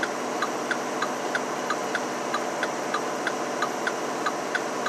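Steady engine and road noise inside a loaded Mack Anthem semi-truck's cab, with a light, even ticking of about five ticks a second.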